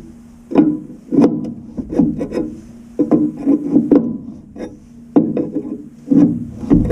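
Hand tools and metal fittings knocking and clinking in irregular clusters as a valve is fitted, with sharp knocks coming every half second or so.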